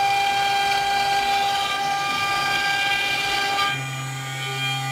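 CNC router running as it cuts a groove in a foam sheet: a steady whine made of several high tones. About three-quarters of the way in the sound shifts, turning slightly quieter with a lower hum added.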